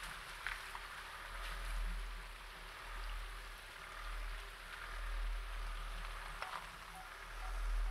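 Ford Kuga TDCi turbodiesel moving slowly off-road, heard from low on the car's flank as a low rumble that swells and fades every couple of seconds under a steady hiss, with a few light ticks from the wheels on the track.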